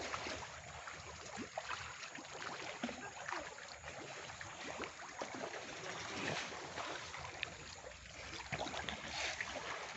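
Fast-flowing river water running past floating fish cages, an even splashing and trickling sound with many short ticks and small splashes scattered through it.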